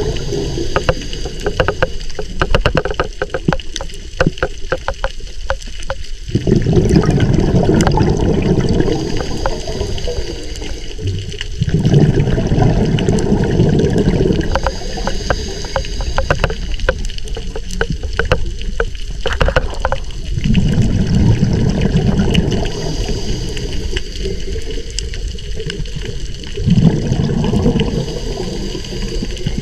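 Scuba diver's breathing heard underwater through the camera housing: exhaled bubbles rumble out in bursts every six to eight seconds, with a fainter regulator hiss between them and scattered crackling clicks throughout.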